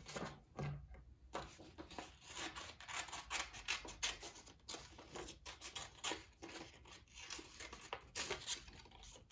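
Scissors cutting through a sheet of paper in a run of short, irregular snips.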